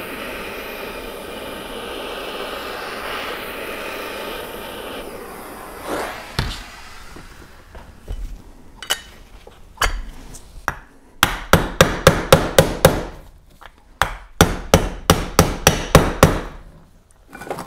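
Propane torch hissing steadily for about five seconds as it heats the aluminium wormcase around a bearing bore. The torch then stops, and a soft-face mallet strikes a bearing driver: a few single taps, then two quick runs of rapid taps that press a cold 6004 ball bearing into the bore until it sits flush.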